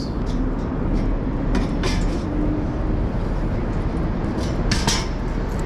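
Steady city street noise with a low traffic rumble, broken by a few brief clicks about two seconds in and again near five seconds.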